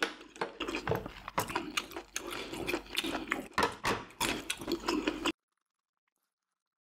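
Close-miked eating sounds: chewing with many small, wet clicks and crackles from the mouth. About five seconds in, the sound cuts off to dead silence.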